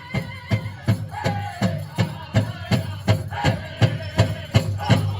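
Powwow drum group playing a fancy dance song: a large drum struck in a fast, steady beat, just under three strokes a second, with voices singing over it.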